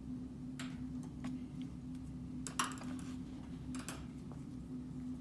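Keys being pressed on a Cipherlab 9700 handheld data terminal's keypad: a few scattered clicks, then two quick clusters about a second apart, over a steady low electrical hum.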